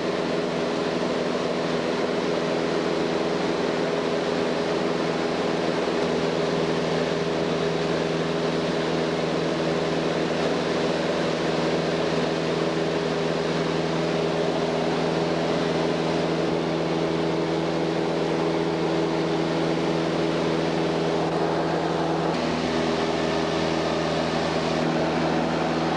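A light aircraft's piston engine and propeller running steadily in cruise, heard from inside the cabin as a hum of several steady tones over a rush of noise. The engine note changes slightly near the end.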